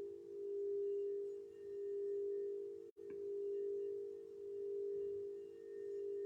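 Crystal singing bowl sounding one steady, sustained tone that swells and fades about every second and a half. The sound breaks off for an instant about halfway through.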